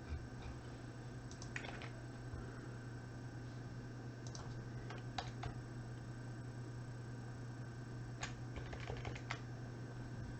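Scattered computer keyboard and mouse clicks, a few at a time, with a short cluster near the end, over a steady low hum.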